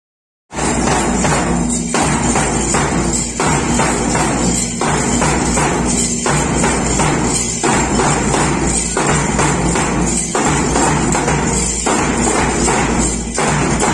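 A small percussion band plays a steady marching rhythm: drums beaten with sticks, a large bass drum and shaken maracas, the pattern repeating about every one and a half seconds. It starts about half a second in.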